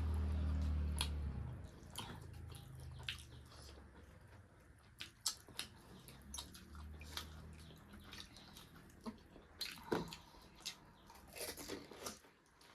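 Close-up eating sounds: chewing and crunching of food with scattered short smacks and clicks, the sharpest about ten seconds in. A low hum fades out about a second and a half in.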